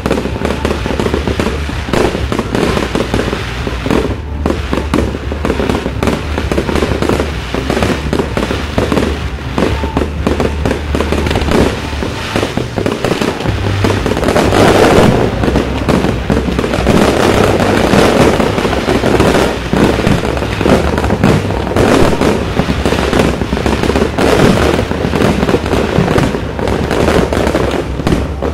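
Fireworks display: a rapid, continuous barrage of aerial shells bursting and crackling, becoming louder and denser about halfway through.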